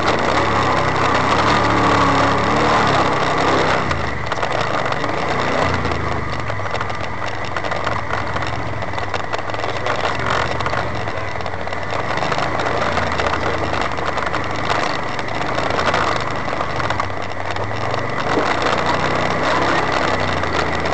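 Engine of a four-seat side-by-side utility vehicle running at low speed over rough rock, its pitch rising and falling with the throttle.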